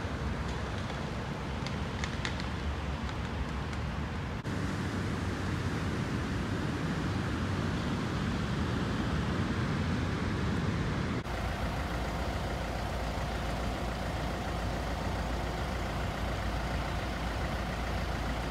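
Storm ambience on a phone microphone: a steady low rumble of wind and road traffic, changing abruptly twice between shots, with a faint steady hum in the last part.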